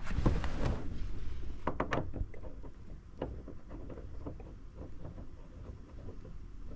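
VW Beetle gear lever being worked through the gears to test a new threaded shift knob: a few sharp clicks and clunks about two and three seconds in, over a steady low rumble.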